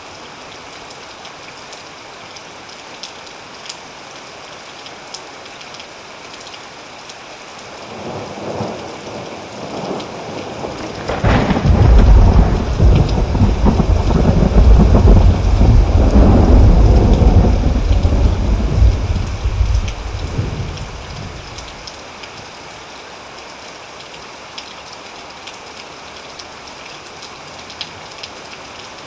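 Steady rain falling, with a thunderclap that builds from a low rumble about eight seconds in, cracks sharply and rolls loud for several seconds, then dies away well before the end, leaving the rain alone.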